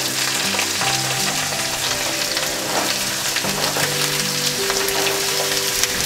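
Freshly added raw cubed potatoes sizzling and crackling in hot mustard oil in a kadai, with steady frying noise as they are stirred.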